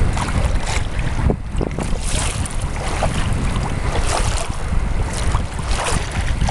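Wind buffeting the microphone with a heavy low rumble, while small choppy waves slap and splash irregularly against a canoe's hull.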